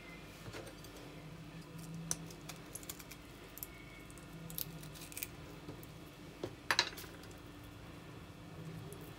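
A metal teaspoon scraping the fibrous choke out of a raw artichoke heart over a wooden cutting board: a run of small scratchy clicks, with a louder knock about two-thirds of the way through.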